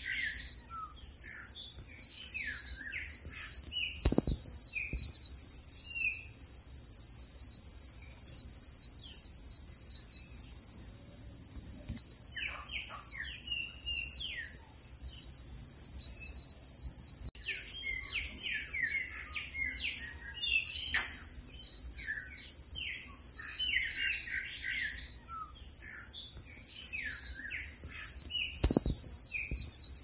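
Steady high-pitched drone of an insect chorus, with bouts of many short bird chirps and calls coming and going over it. Two low thumps come about four seconds in and near the end.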